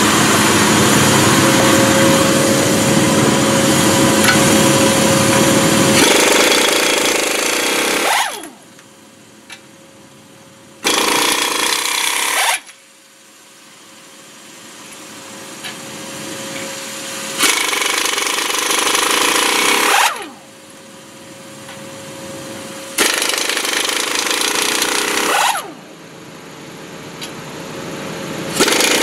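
Impact wrench hammering on the lug nuts of a Ford F800 truck's front wheel, in several bursts of two to three seconds. Each burst ends in a falling whine as the tool spins down, with a faint steady hum between bursts. For the first six seconds a loud steady machine noise with a deep rumble runs instead.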